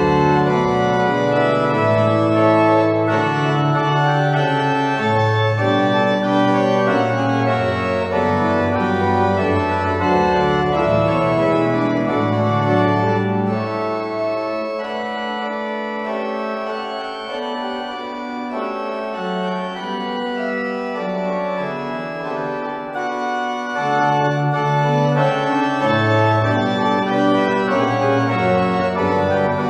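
Pipe organ playing sustained full chords over low bass notes. About halfway through the bass drops out and it plays a little more quietly for several seconds, then the low bass comes back in.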